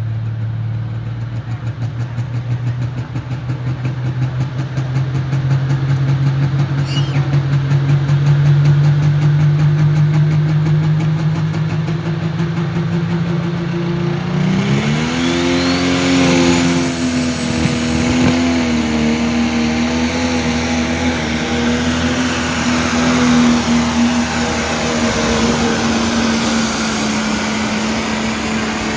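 Turbocharged diesel engine of a pro stock pulling tractor held at high revs at the starting line, its pitch creeping slowly upward. About halfway through it revs up sharply and holds a steady full-throttle pitch as it hauls the weight-transfer sled down the track.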